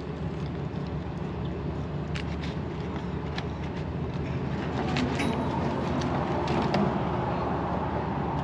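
Road traffic: a motor vehicle's engine running steadily nearby, swelling for a couple of seconds about halfway through as a vehicle passes. A few light clicks sit over it.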